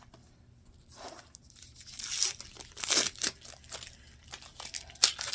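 Packaging being handled, crinkling and rustling in several bursts, with a sharp click near the end.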